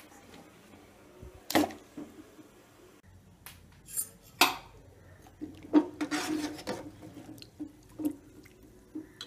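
A spoon knocking and scraping against a metal cooking pot as cassava pieces are handled in water: several sharp knocks, with a short scrape a little past the middle.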